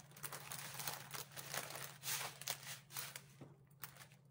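Clear plastic packaging crinkling and rustling in short irregular crackles as a hand presses and handles it, over a faint steady low hum.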